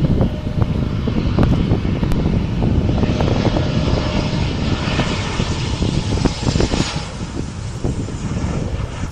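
Jet airliner's engines passing: a hissing engine noise swells from about three seconds in and fades near the end, over wind buffeting the microphone.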